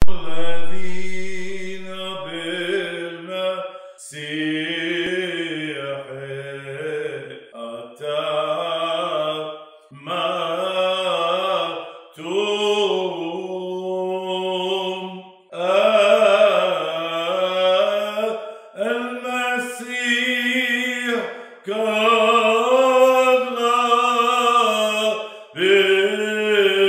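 Orthodox liturgical chant: a voice sings a hymn in phrases of about two seconds, with brief pauses between them.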